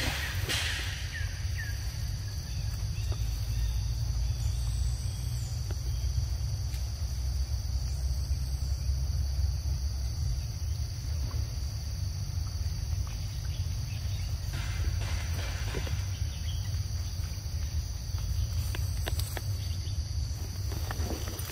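Steady high-pitched chorus of forest insects over a continuous low rumble, with a few brief rustles near the start, about two-thirds of the way in and near the end.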